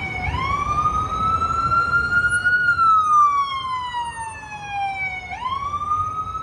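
Emergency vehicle siren on a slow wail, sweeping up and down in pitch with about one full rise and fall every five seconds, over low city traffic noise.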